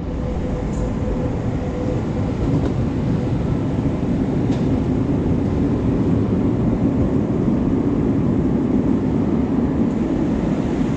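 Escalator running, a steady low rumble from its moving steps and machinery, mixed with the hum of the station around it.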